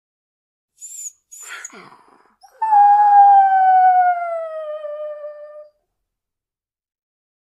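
A dog howls. Two short rough noises come about a second in, then one long howl that slides slowly down in pitch for about three seconds and stops.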